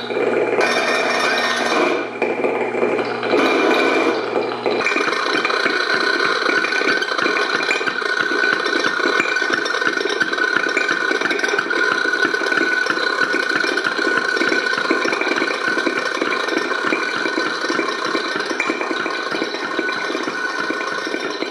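Piezo contact-microphone discs buzzing and rattling against loudspeaker cones in physical feedback: a dense, fast rattle with steady ringing tones above it. About five seconds in a low hum drops out and the rattle settles into an even, continuous texture.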